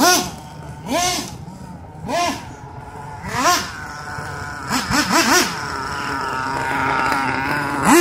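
Nitro engine of a Mugen MBX6R 1/8-scale RC buggy with an HSP tuned exhaust pipe, revving in short throttle blips that rise and fall about once a second, then three quick blips in a row near the middle. Over the last couple of seconds it is held at a steady high speed as the buggy drives.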